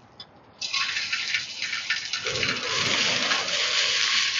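Clams sizzling on a hot grill. The sizzle starts suddenly about half a second in and then holds steady.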